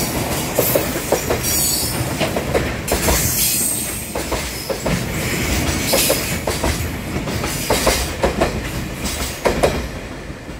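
JR Freight Koki container wagons rolling past at speed, their wheelsets clattering over the rail joints in repeated groups of knocks over a steady rumble. The clatter eases near the end as the last wagons go by.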